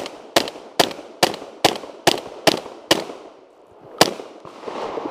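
Shotgun fired in a fast string of eight shots, a little over two a second, then one more shot after a pause of about a second.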